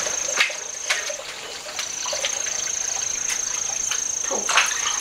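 Bath water splashing and sloshing in a few short strokes as a person climbs into a wood-fired tub, with a steady high whine running under it that breaks off briefly a little after a second in.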